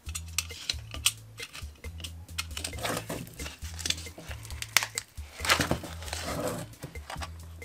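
Thin plastic mould crinkling and tearing as it is slit with a utility knife and peeled off a cast concrete piece, with scattered sharp clicks; the loudest crinkling comes about two thirds of the way through. Background music with a steady bass line runs underneath.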